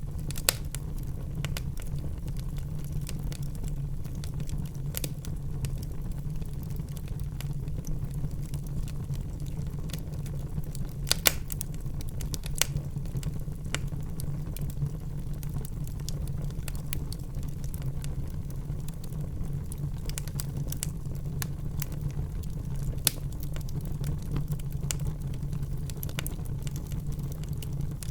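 Wood fire burning in a fireplace: a steady low rumble under scattered sharp crackles and snaps, with a few louder pops around eleven to thirteen seconds in.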